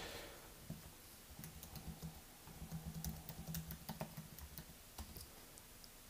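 Faint typing on a computer keyboard: an uneven run of light key clicks, with a low hum beneath the middle part.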